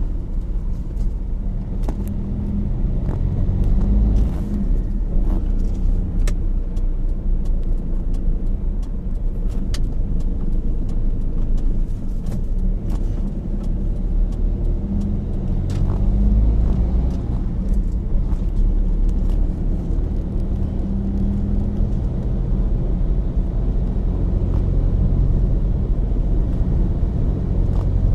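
Steady low rumble of a car on the move, with a hum that rises and fades now and then and a few light clicks.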